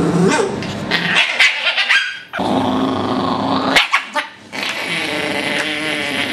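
Small curly-coated white dog growling and snarling with sharp barks, fighting a muzzle being strapped on: an aggressive dog resisting handling. The sound comes in three long bouts with short breaks about two and four seconds in.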